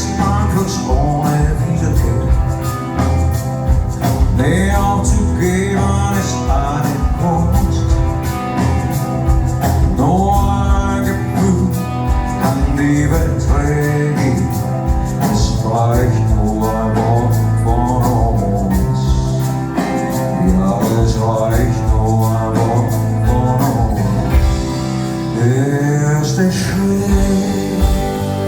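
Live band music, a rock ballad with guitar, loud and continuous, with a lead melody that slides up and down in pitch.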